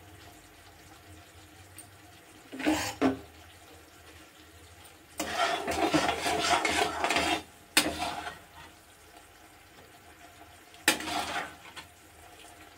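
Metal perforated ladle stirring and scraping in a metal kadhai of boiling sugar syrup, in several bouts: a short one about three seconds in, a longer stretch of about two seconds midway, and another near the end.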